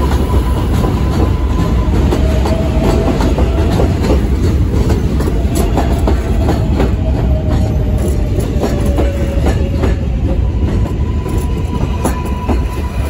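R143 New York City Subway train running past at close range: a loud, steady rumble with a rapid clatter of wheels over rail joints. A faint held whine drifts slightly lower in pitch through the middle.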